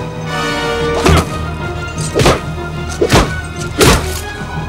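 Dramatic orchestral film score, with four loud, sharp impact hits roughly a second apart cutting through it.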